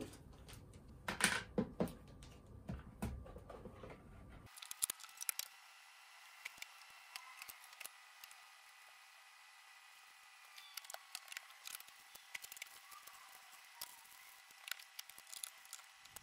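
Faint handling sounds of kitchen items, scattered clicks, taps and plastic packaging rustles, as bread ingredients and the bread machine's pan are set out on a wooden table. About four and a half seconds in, the sound abruptly turns thin, with a faint steady tone, and sparse clicks carry on.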